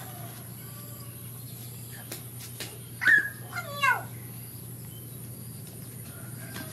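Baby macaque giving a quick run of short, high squeals that fall in pitch, about three seconds in.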